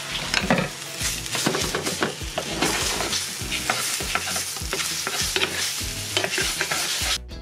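Sausages sizzling as they brown in a cast-iron frying pan, with a wooden spoon repeatedly knocking and scraping against the pan as they are turned.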